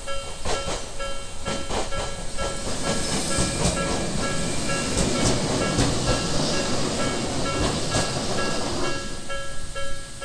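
A Jōmō Electric Railway train passes over a level crossing, with a noisy rush and sharp clacks of wheels over rail joints, while the crossing's electronic warning bell, in the Tobu-style 'B' tone, rings on in a steady repeating pattern. The train noise dies away near the end, leaving the bell ringing alone.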